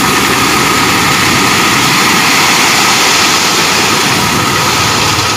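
Light dump truck's engine running while its hydraulic hoist tips the bed and a load of gravel slides out, a loud, steady rushing noise with a steady whine in it.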